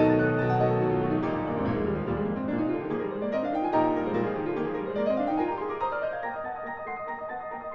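Concert grand piano played four hands: a loud chord at the start, then rapid scale runs sweeping up and down the keyboard, growing softer near the end.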